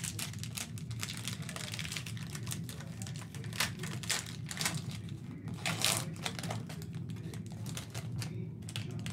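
Cardboard trading cards being flipped and slid through a stack by hand: a quick, irregular run of light clicks and rustles, with a few sharper snaps in the middle, over a steady low hum.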